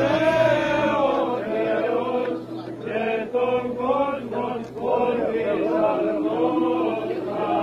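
Orthodox liturgical chant sung by a group of voices, the melody moving over a steady held drone note.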